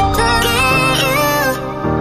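Background music: a melody over held bass notes that change about every second.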